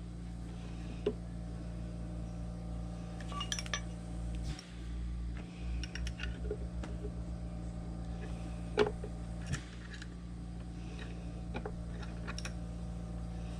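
Small metal machine parts and tools clinking and tapping as they are handled, with a sharp clink about nine seconds in as the loudest. A steady low hum runs underneath.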